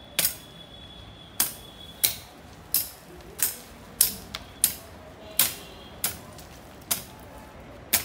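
Curved cutlass swung low in repeated strokes, cutting grass and striking the ground: about a dozen sharp swish-chops at an even pace of roughly one and a half a second.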